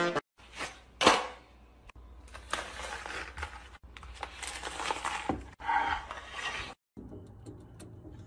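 Kitchen knife cutting through a toasted quesadilla on a cutting board: a series of noisy cutting strokes, the loudest about a second in. It stops abruptly near the end.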